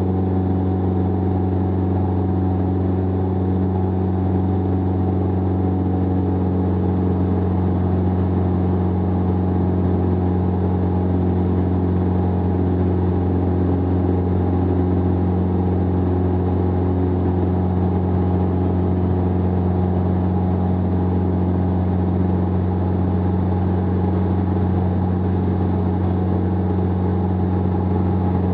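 Jabiru 2.2-litre four-cylinder air-cooled aircraft engine and propeller running steadily in flight, a constant low drone.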